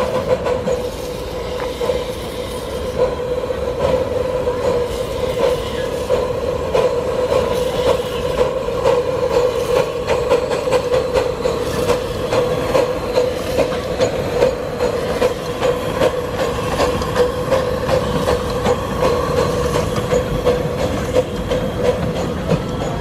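Miniature steam train running past on its small-gauge track: a steady high squeal is held throughout, with a regular beat of clacks about twice a second over it.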